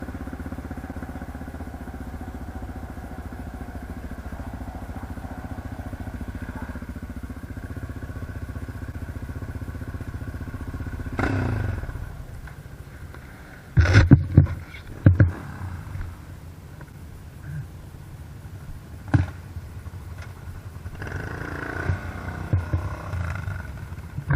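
ATV engine running at a steady pitch, then easing off about halfway through. Several loud knocks or thumps come just after that, and another a few seconds later.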